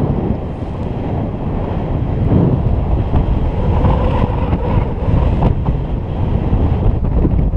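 Loud, steady wind rushing over the camera microphone of a paraglider in flight, a dense low rumble with a few faint rustles of gear partway through.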